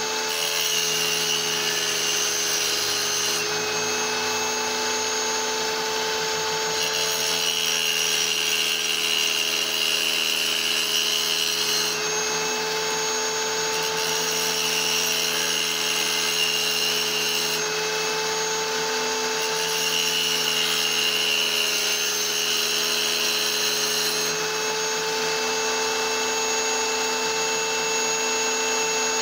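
Electric tile saw running steadily while a small piece of petrified wood is pressed against its blade. The grinding of the cut grows and eases over several passes lasting a few seconds each.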